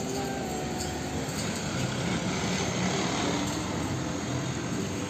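Hino diesel tanker truck driving on a road: a steady engine note under the hiss of tyres and traffic.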